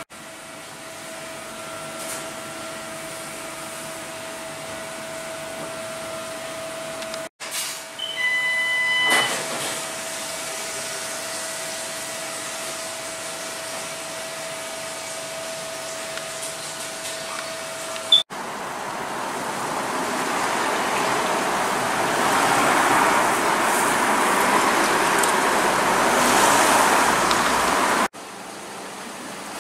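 Ambient machine noise inside a takeaway shop, in several spliced clips: a steady electrical hum with a constant tone, a couple of short high beeps about eight seconds in, then a louder even rushing noise that builds over the last third and stops abruptly near the end.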